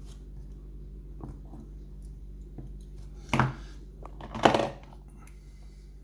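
Metal clinking and clattering as a mortice lock and its tools are handled and taken apart, with a few light clicks and two louder knocks, one about three seconds in and one about four and a half seconds in.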